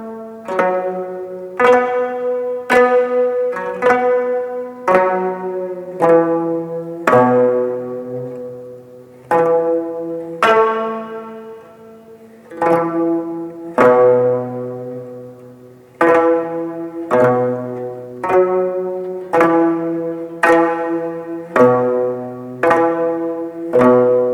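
An ensemble of jeongak gayageum, the twelve-string Korean court zither, playing in unison: plucked notes roughly one a second, sometimes two close together, each ringing and fading, over low notes.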